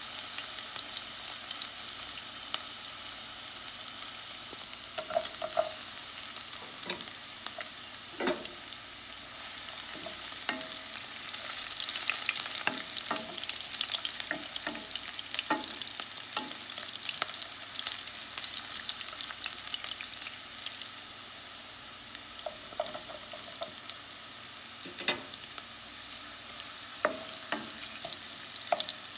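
Sliced red onion, garlic and ginger sizzling in hot oil in a nonstick pan, with a wooden spatula stirring and knocking against the pan now and then.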